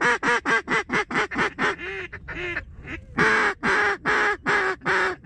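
Mallard duck call blown by a hunter: a fast run of about eight short quacks, then two softer ones, then five long, loud quacks, each dropping in pitch. The hunter is calling to draw mallards in toward the decoys.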